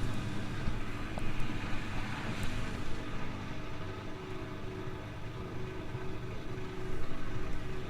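Hoover DYN 8146P8 front-loading washing machine running early in a Cotton 60 cycle: a steady motor hum with a hiss over it and a few faint clicks.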